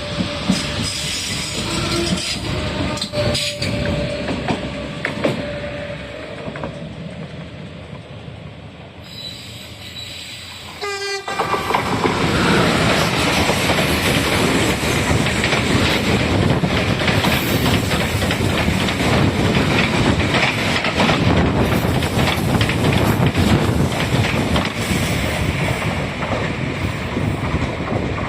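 Renfe trains running along the track, wheels clicking over the rail joints with a steady tone over it at first. About twelve seconds in a train passes close by, its wheels and rushing noise much louder and steady.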